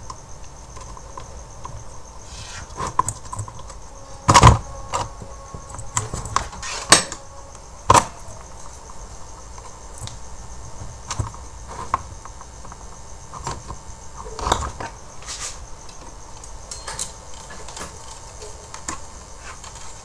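Light clicks and knocks of a circuit board and soldering tools being handled against an induction cooker's plastic housing, with a few sharper knocks about four and a half, seven and eight seconds in. Crickets chirp steadily in the background.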